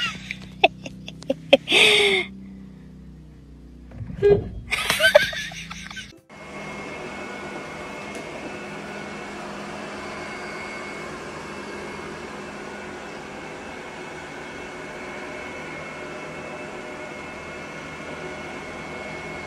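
For the first six seconds, short loud bursts of a person's voice and laughter over low background music. Then a robot vacuum runs: an even motor and brush hum with a faint high whine that holds steady throughout.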